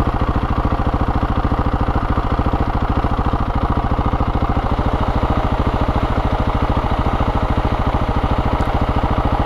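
Motorcycle engine idling steadily with an even, rapid beat.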